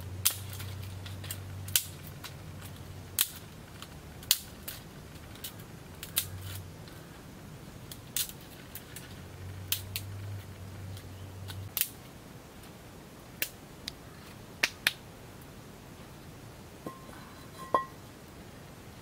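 Sharp, irregular snaps and clicks, roughly one a second, over a low steady hum that fades out about twelve seconds in.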